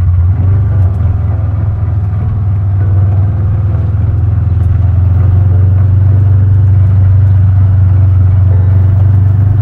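Motor vehicle engine running at a steady speed: a loud, low, even drone.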